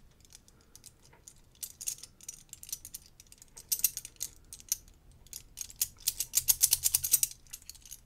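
Metal pieces of a Huzzle Cast Padlock puzzle clicking and clinking against each other as they are turned and slid in the hands. The clicks come in quick irregular clusters, densest and loudest about six to seven seconds in.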